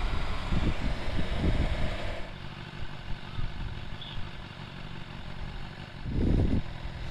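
Motorcycle on the move: a steady engine-and-road rumble, louder for the first couple of seconds and then easing off, with a brief louder swell about six seconds in.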